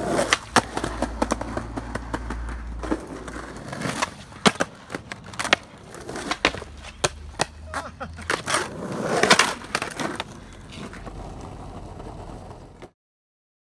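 Skateboards rolling on rough asphalt, with repeated sharp clacks of boards and trucks striking a concrete curb and scraping along it in slappy curb grinds. A louder scrape comes about nine seconds in, and the sound cuts off suddenly near the end.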